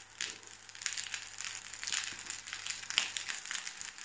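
Fried rice sizzling and crackling in a hot non-stick pan as juicy chopped pineapple is tipped in, a dense run of pops that is loudest about three seconds in.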